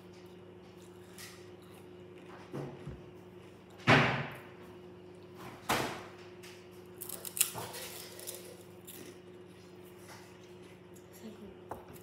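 A few sharp knocks close to the microphone over a steady low hum: the loudest about four seconds in, another near six seconds, and smaller clicks a little later.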